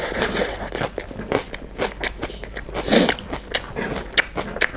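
Close-miked chewing and crunching of chicken biryani, a quick irregular run of wet clicks and crunches, with fingers picking rice off a wooden board.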